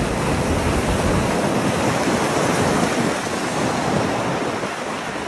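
Strong wind rushing steadily, buffeting the microphone.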